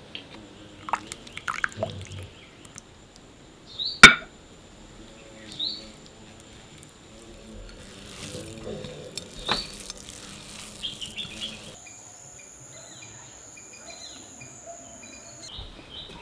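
Kitchen work sounds: scattered light clinks and knocks with liquid sounds, and one sharp knock about four seconds in.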